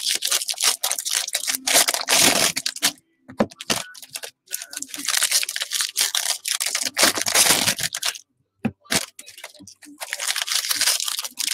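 Foil wrappers of baseball card packs being torn open and crinkled, in crackly bursts with a few short pauses.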